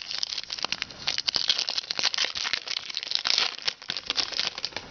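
Shiny foil wrapper of a 2010 Topps Update baseball card pack being torn open and crinkled by hand: a dense, irregular run of crackling and rustling.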